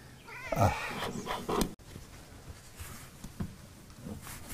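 A domestic cat meowing, one drawn-out wavering call from about half a second in to nearly two seconds in, followed by faint handling clicks.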